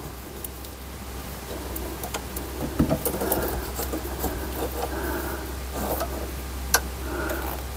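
Scattered light clicks and short scrapes of a metal rod being worked in among car parts to hold a nut in place, over a steady low hum.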